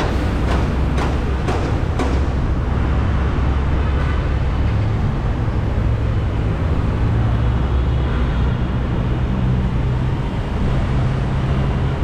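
City road traffic: vehicle engines running steadily. A quick series of sharp knocks or clicks comes in the first two seconds.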